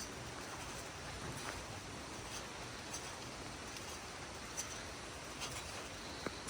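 Temperate rainforest ambience: a steady hiss with faint, sharp ticks and taps scattered every second or so.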